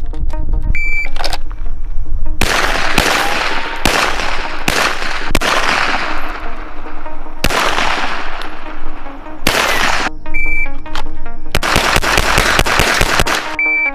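A string of real firearm gunshots, about ten sharp loud reports each followed by a decaying echo, fired roughly a second apart with a couple of longer pauses. Background music plays underneath.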